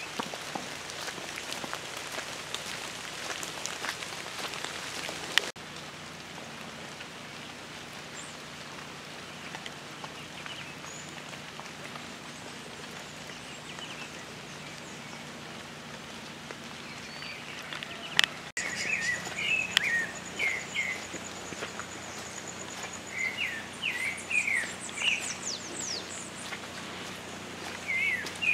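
Rain falling for the first five seconds or so, then a softer steady outdoor hiss. About two-thirds of the way in, birds start calling in repeated short chirps, with a high thin insect buzz for a few seconds.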